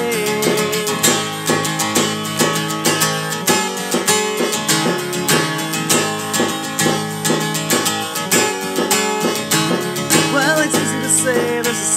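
Acoustic guitar strummed in a steady rhythm, an instrumental passage of a song with no singing.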